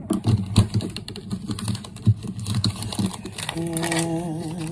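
A quick, irregular run of small plastic clicks and taps as a Mini Brands plastic capsule ball and its packaging are handled and opened. Near the end a man's voice hums a low, wavering note.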